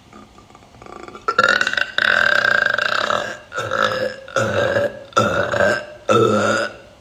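A woman burping deliberately: one long drawn-out burp of about two seconds, then four shorter burps in quick succession.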